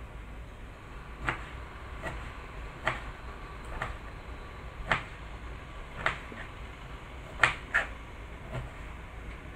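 Kitchen knife chopping salted mustard greens on a plastic cutting board: sharp knocks of the blade striking the board, about one a second and unevenly spaced, with a quick double stroke about three-quarters of the way through that is the loudest.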